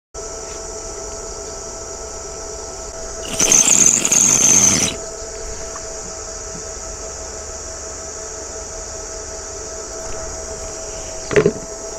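Steady high-pitched insect chorus. A loud, harsh burst of noise lasting about a second and a half starts about three seconds in, and a short sound comes near the end.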